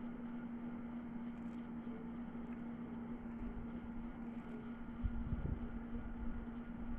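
Steady mechanical hum holding one constant low tone, like a running fan or appliance motor. A few low bumps come about five seconds in.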